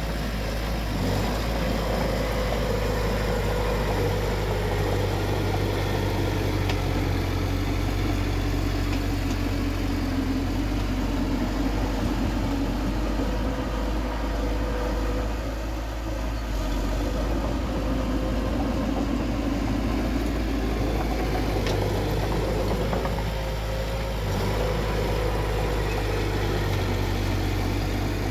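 Bulldozer's diesel engine running steadily, its pitch rising and falling a little as it works.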